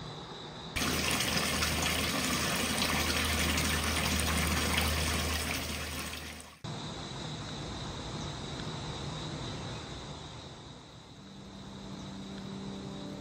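Running water, a loud even rush that cuts in suddenly about a second in and stops just as suddenly about six and a half seconds in. Quieter steady background noise surrounds it.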